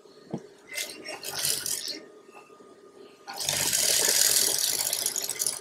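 Industrial sewing machine stitching a seam in two runs: a short one about a second in, then a longer, louder one from about three and a half seconds in, over a steady low motor hum.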